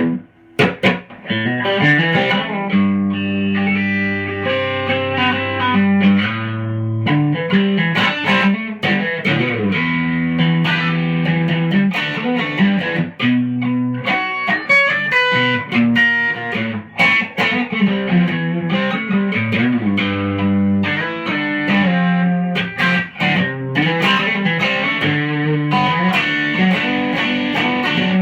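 Electric guitar, its pickup split to single-coil, played through a 1964 Fender Vibroverb tube amp with a Tube Screamer overdrive: mildly driven chords held and runs of picked single notes.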